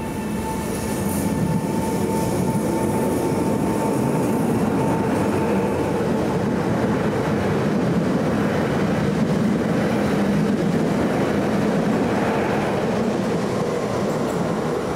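Electric multiple unit passenger train running past along the platform, a steady rumble of wheels on rail that swells over the first couple of seconds and then holds. A high steady whine at the start fades away over the first few seconds.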